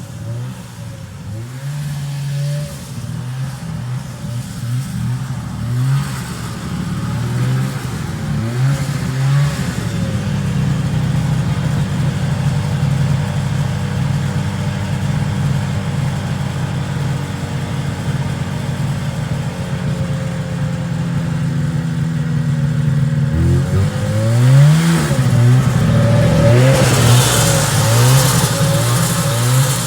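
1974 John Deere JD600 snowmobile's two-stroke engine running as the sled is ridden, the revs rising and falling with the throttle. The pitch holds steady through the middle, then the engine revs up and down again, louder, near the end.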